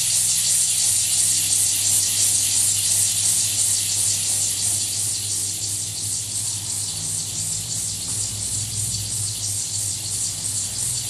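Electroacoustic music: a steady hiss like white noise over a low droning hum, with a second low tone that comes and goes.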